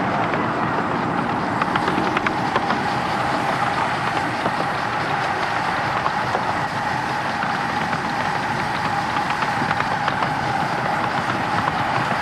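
Miniature steam locomotive running along the track: a steady noise of steam and running gear with a few clicks from the wheels on the rails.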